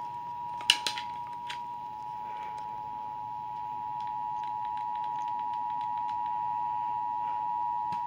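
Emergency Alert System two-tone attention signal played through a TV speaker: two steady tones sounding together for about eight seconds, then cutting off, the signal that heralds an emergency alert, here a severe thunderstorm warning. A sharp clack sounds a little under a second in.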